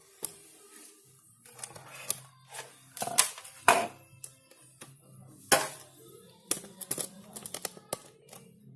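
Irregular sharp clicks, knocks and small clatters, as of tools or parts being handled, loudest about three and a half seconds in and again in a quick run near the end, over a faint steady low hum.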